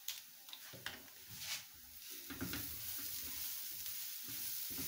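Silicone spatula stirring chopped vegetables and spices in a nonstick frying pan, with a light sizzle of frying. A few short knocks at first, then steady stirring from about two seconds in.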